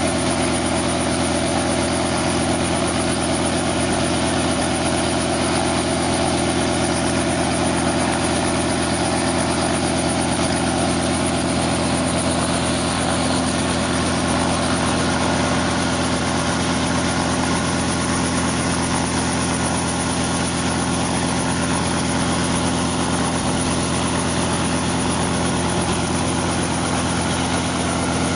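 Small piston-engined helicopter idling on the ground during start-up: a steady engine drone, with the main rotor only beginning to turn slowly near the end.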